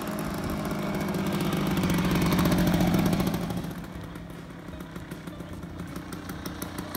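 Vespa PX 150 scooter's single-cylinder two-stroke engine running as it rides by, growing louder over the first three seconds, then fading as the scooter moves off.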